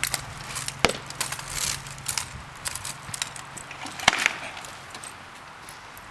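Rattan swords striking shields and armour in sparring: sharp hollow knocks, the loudest about four seconds in, with lighter clatter and rustling of armour between.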